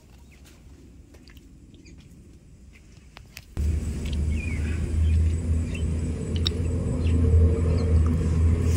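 Faint outdoor background with a few light clicks, then a loud, steady low rumble starts abruptly about three and a half seconds in, with a few bird chirps over it.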